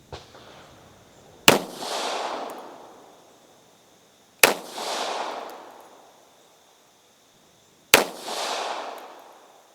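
Springfield Armory M1911A1 .45 ACP pistol firing three single shots about three seconds apart, each crack followed by a long rolling echo. A faint click comes just before the first shot.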